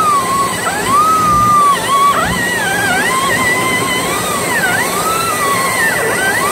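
Background music: a wavering, gliding lead melody over a steady low hum.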